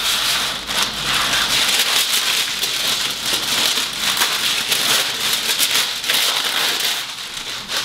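Parchment paper rustling and crinkling as a long sheet is pulled off the roll and torn free at the box's cutting edge: a dense, crackly rustle that eases off near the end.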